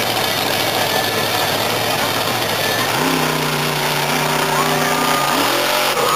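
Monster truck engine running hard. It holds a steady note for a couple of seconds, then rises sharply near the end as the truck accelerates into a jump over a row of parked cars.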